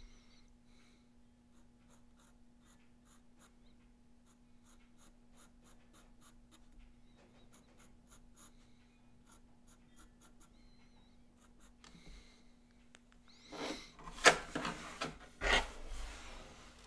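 Pencil scratching on drawing paper in many short, quiet strokes over a faint steady hum. Near the end the sheet is slid and turned on the wooden desk, with a few louder rubs and knocks.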